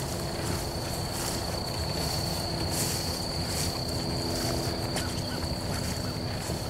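Footsteps and clothing rustle of hunters walking through field grass, over a steady high-pitched whine.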